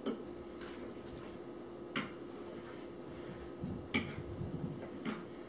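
A fork clicking against a plate as food is cut and gathered up: four short, sharp clicks about one to two seconds apart, with a little soft scraping between them.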